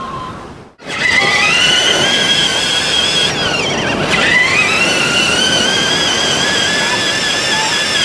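Electric motor and gears of a large remote-control monster truck whining steadily, the pitch dropping and climbing back once midway as it slows and speeds up again, with faint surf underneath.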